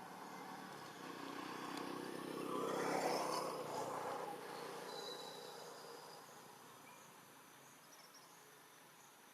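A motor vehicle passing by, growing louder to a peak about three seconds in and then fading away, over steady insect chirring.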